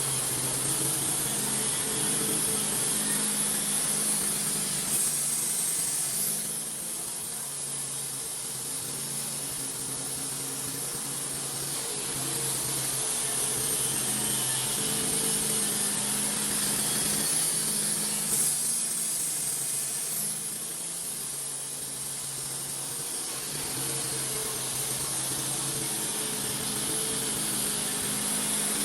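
Wood-Mizer band sawmill running and cutting a log: a steady motor hum under a hiss from the blade, growing louder and softer a few times.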